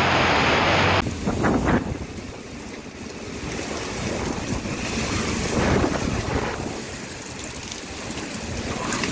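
Heavy rain pouring down steadily. About a second in it gives way to strong gusting wind driving rain, surging louder and softer and buffeting the microphone.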